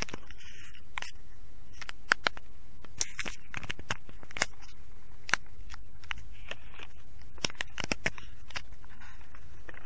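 Steady recording hiss with sharp, irregular clicks and crackles scattered through it. A few louder clicks fall about two seconds in, around four and five seconds, and in a quick cluster near eight seconds.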